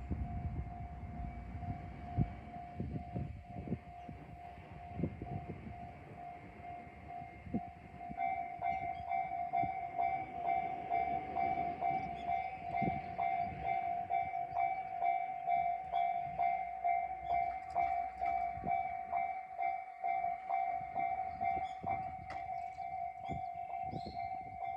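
Level-crossing warning bell ringing with a steady repeated electronic clang that grows louder about a third of the way in. Over the first few seconds a 1200/1500-type diesel railcar rumbles past with wheel clicks over the rail joints.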